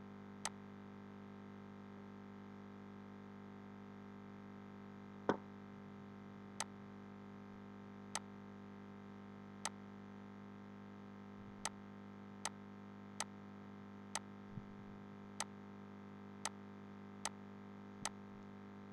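Computer mouse clicking: about a dozen single sharp clicks, spaced roughly a second apart, over a faint steady low hum.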